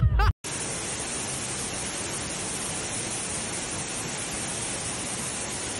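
Muddy floodwater rushing down a slope, a steady even rush of water.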